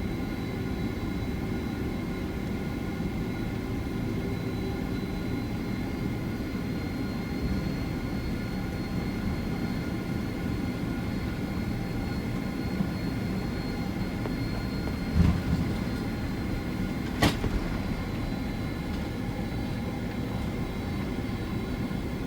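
Cabin noise inside a Boeing 767-400ER airliner: a steady low rumble with a steady high whine running through it. A short thump comes about fifteen seconds in and a sharp click about two seconds later.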